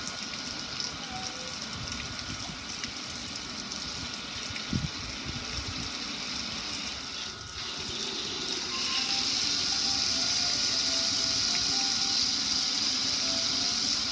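Water pouring and splashing over a gas grill's lid and control panel and running off onto concrete, growing louder a little past halfway. A single thump about five seconds in.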